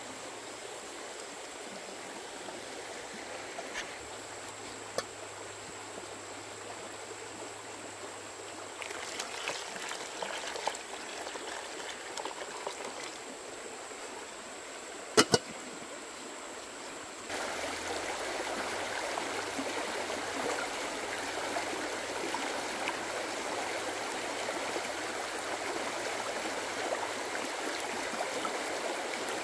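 Water running steadily, with two sharp knocks close together about halfway through; a little after that the water abruptly becomes louder.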